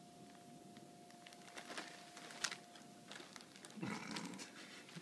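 Tissue paper and a plastic bag rustling and crinkling as two tabby cats shift about on them, the loudest crinkle about halfway through. A short cat vocalization comes about four seconds in.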